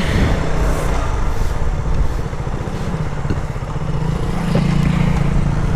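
Motorcycle engine running steadily while riding, with wind rushing over the rider's microphone.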